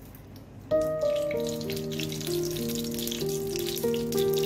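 Desi ghee sizzling and crackling as it melts in a small iron tadka pan over a gas flame, starting a little under a second in, under background instrumental music.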